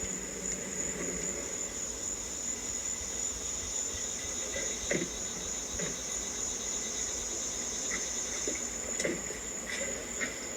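Insects chirring steadily at a high pitch, with a few faint soft knocks around the middle and near the end.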